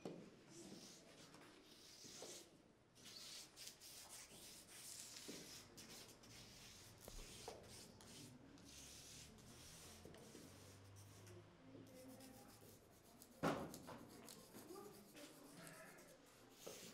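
Near silence with faint, irregular rustling and rubbing, broken by one sharper knock about thirteen and a half seconds in.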